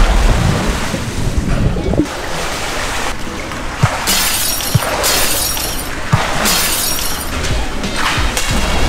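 Pool water splashing and sloshing as a person swims, with waves slapping the pool edge. There is a heavy churn at the start, then splashes about once a second from about four seconds in.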